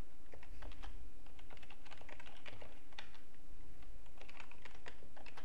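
Typing on a computer keyboard: a run of quick, irregular keystrokes as an email address is entered.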